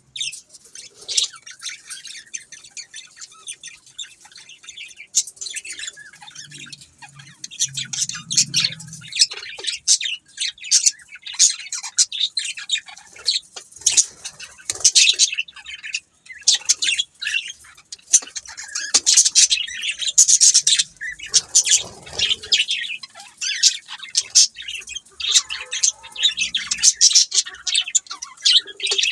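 Budgerigars chirping and chattering continuously, a dense run of rapid high-pitched chirps and warbles from several birds.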